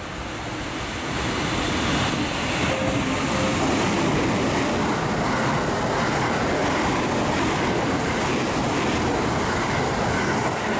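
Thunderbird limited express electric train passing through the station at speed without stopping. It makes a rushing noise that builds over about two seconds and then holds steady as the cars go by.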